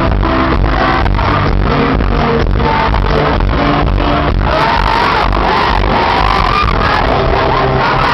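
Live pop band playing on an arena sound system, recorded from the crowd, with a steady beat about twice a second that gives way to more sustained sounds about halfway through.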